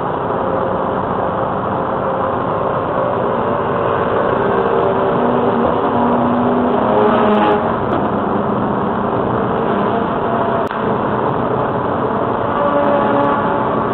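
Steady road and engine noise from inside a car cruising at highway speed, with a brief swell about seven seconds in.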